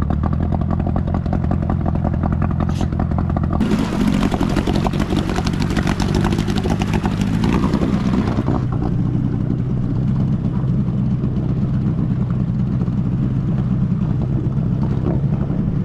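Small two-stroke outboard motor on an inflatable dinghy running steadily under way. From about four seconds in, a loud hiss joins the engine drone for about five seconds.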